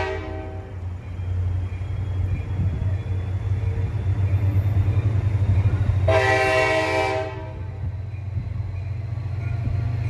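NJ Transit commuter train's air horn sounding for the crossing: the end of one blast right at the start, then another blast of about a second and a half about six seconds in, over the steady low rumble of the approaching train.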